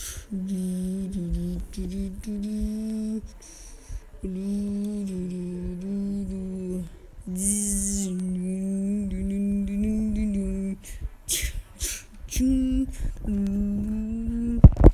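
A boy humming a tune in long held notes, phrase after phrase with short breaks between them, with a sharp knock near the end.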